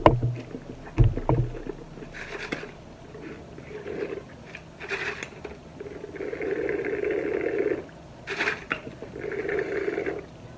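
Milkshake being drunk through a straw from a foam cup, with two long slurping pulls about six and nine seconds in. There are low thumps at the very start and about a second in.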